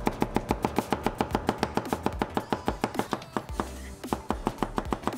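A large kitchen knife rapidly slicing red onion on a cutting board: a quick, even run of chops about seven or eight a second, with a brief pause about three and a half seconds in.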